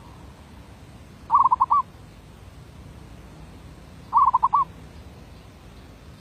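Zebra dove (merbok) cooing: two short phrases about three seconds apart, each a quick run of four or five notes.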